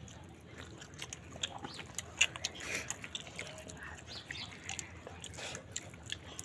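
Close-miked eating: chewing and biting into chicken leg with dal curry, wet smacking and irregular sharp clicks. The loudest click comes about two seconds in.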